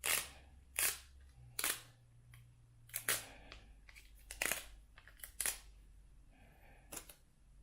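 A dust-removal sticker pressed onto a smartphone's glass screen and pulled away again and again, giving a short, sharp tacky snap each time, about seven in all at roughly one-second intervals.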